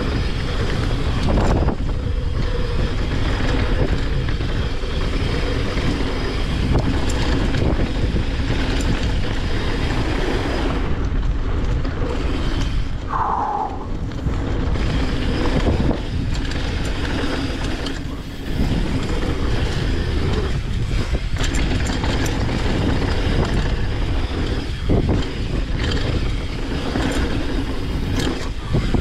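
Mountain bike ridden downhill on a dirt and gravel flow trail: tyres rolling and crunching over the surface, with the bike rattling over bumps and wind on the microphone. A short squeal sounds about halfway through.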